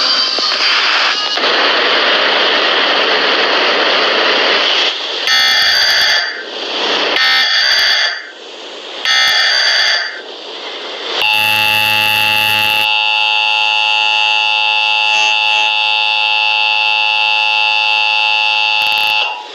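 Emergency Alert System alert tones: about five seconds of hissing noise, then three short screeching data bursts of the SAME header about a second apart, then the steady two-tone EAS attention signal held for about eight seconds, which opens a National Periodic Test.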